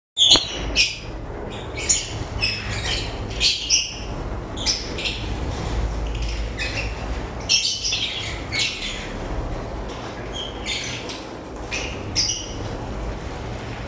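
Lovebirds chirping and squawking in many short, shrill calls at an irregular pace, over a steady low rumble.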